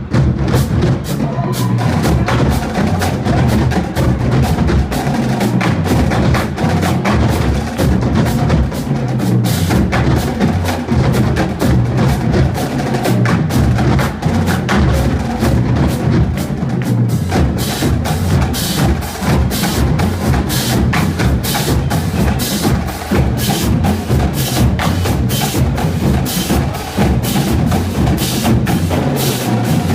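Marching drumline playing a fast percussion piece: dense drum strokes over low bass drum notes that change pitch. From about eighteen seconds in, sharp clicking strokes stand out in the rhythm.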